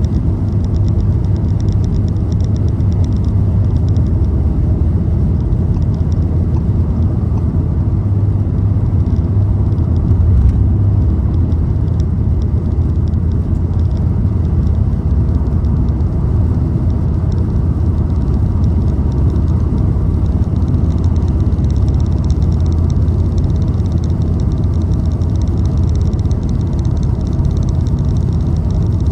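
Steady low rumble of a car cruising at road speed: tyre and engine noise with no change in pace.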